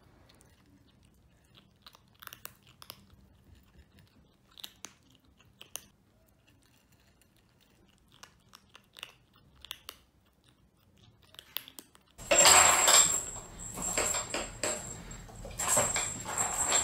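Kittens crunching dry kibble, in scattered soft crunches. About twelve seconds in, a sudden much louder clatter of knocks and rustling starts, with a steady high-pitched whine over it.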